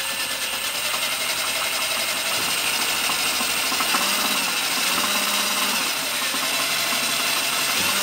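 Black+Decker 18 V cordless drill running with a cobalt drill bit cutting into a rusted steel brake-rotor retaining screw. The motor pitch sags and recovers several times as the bit bites and is eased in.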